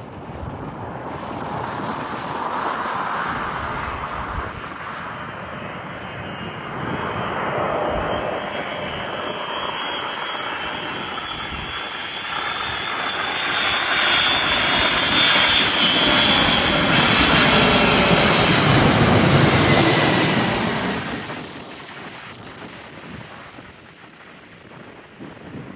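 Jet engines of a Boeing 747 on landing, a roar with a high whine that builds, is loudest over several seconds, then falls away about 21 seconds in.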